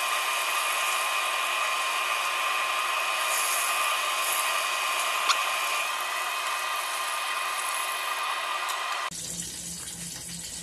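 Breaded chicken thigh cutlets deep-frying in hot oil, a steady sizzle with a steady high whine running through it and a single sharp click about five seconds in. About nine seconds in the sound drops abruptly to a quieter background.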